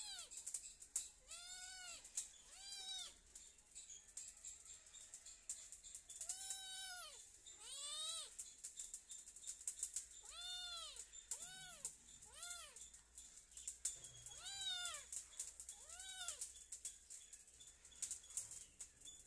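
Young ginger kitten meowing over and over: about ten separate meows, each rising then falling in pitch, some in quick pairs and some alone with gaps of a second or more. Faint fine clicking runs in the background.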